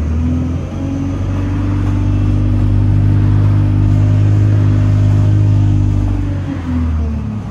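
Bus's diesel engine running steadily with a deep hum, the note shifting and dropping about six and a half seconds in.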